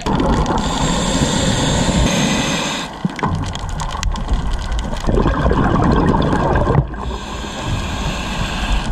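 Underwater sound picked up by a camera in its waterproof housing: a muffled rush of water moving past the housing as the diver swims, with scattered clicks and a low rumble that steps down about three seconds in and again near seven seconds.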